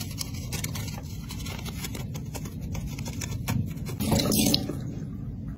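Brush scrubbing a soapy plastic makeup palette in quick scratchy strokes, then a short gush of tap water splashing onto it about four seconds in.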